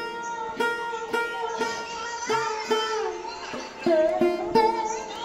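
Background music on a plucked string instrument in an Indian classical style: plucked notes about twice a second over a steady drone, some notes bending in pitch.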